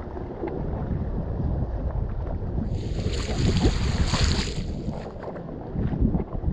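Wind buffeting the microphone over the wash of sea waves; about three seconds in, a wave's hiss swells for a second or two, then dies back.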